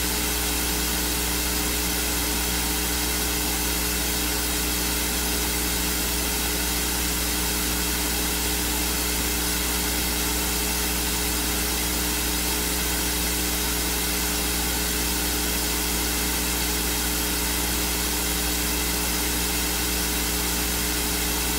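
Steady hiss with a low hum and a few steady tones, unchanging throughout: electronic noise from the recording's sound system, with no voice coming through.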